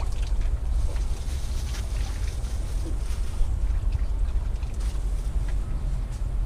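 Low, steady rumble of wind buffeting the microphone while on the move, with a few faint clicks on top.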